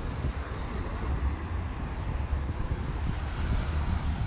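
Wind buffeting the microphone of a camera moving along on a bike ride, a steady low rumble under the hiss of road traffic. The traffic hiss grows louder near the end as a motorcycle comes alongside.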